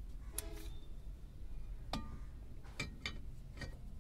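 Brake drum being handled and slid over the rear brake shoes onto the wheel hub: five or so sharp metallic clicks and knocks, the first with a short ring.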